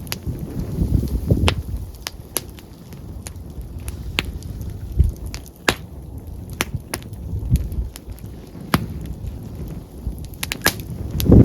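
Open wood campfire crackling, with sharp irregular pops from the burning wood. Low gusts of wind buffet the microphone, the strongest one near the end.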